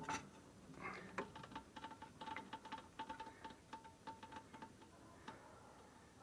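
Light metallic ticking from tool work on the car's front suspension: a sharp knock at the start, another about a second in, then irregular ticks with a faint ringing note, a few a second, stopping after about five seconds.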